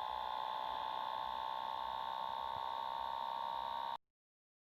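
A steady held electronic tone with higher overtones, sinking slightly in pitch, that cuts off suddenly about four seconds in.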